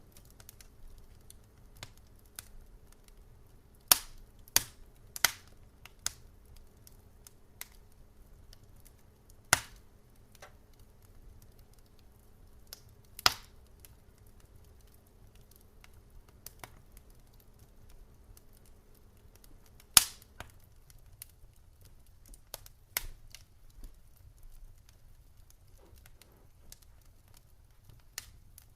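Wood campfire crackling: sharp pops and snaps at irregular intervals, a few of them much louder than the rest, over a low rumble.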